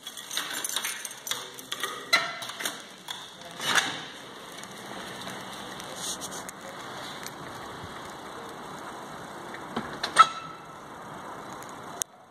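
Rapid clicks and knocks of a door lock being worked and a PVC door opening, followed by steady outdoor background noise with a single sharp knock about ten seconds in.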